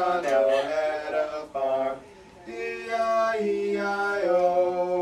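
Unaccompanied singing of a children's song in long held notes, with a short break about two seconds in.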